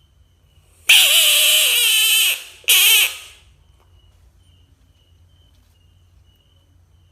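Frog screaming twice: a loud wavering cry of about a second and a half, then a shorter one. A frog's scream like this is a distress call given when it is grabbed or threatened.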